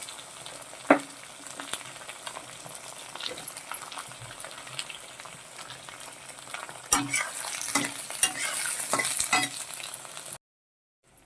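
Chopped potato, pumpkin and brinjal sizzling as they fry in hot oil while a spatula stirs and scrapes against the pan, with a sharp knock about a second in. From about seven seconds the stirring clicks come thicker and the sizzle grows louder, then the sound cuts off abruptly near the end.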